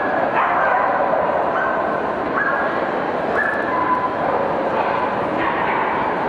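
A dog whining and yipping over and over in short, high, held cries at shifting pitches, over a steady hubbub of crowd chatter.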